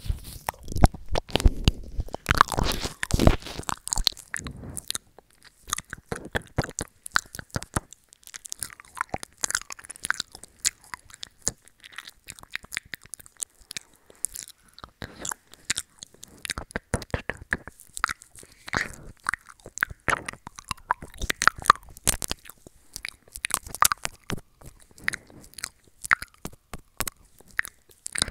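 Close, wet ear-eating mouth sounds: lips and tongue smacking and sucking on a wired earbud held at the mouth. It is a dense run of short wet clicks, busiest and loudest in the first few seconds, then sparser.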